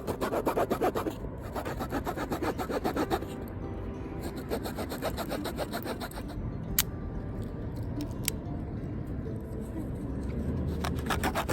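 Hand saw cutting wood in quick rasping back-and-forth strokes, in two spells, with a steadier lower noise in between and a couple of sharp clicks.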